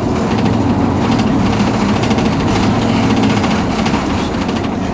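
Mercedes-Benz Citaro G C2 articulated bus's diesel engine idling steadily with a low hum while the bus stands still.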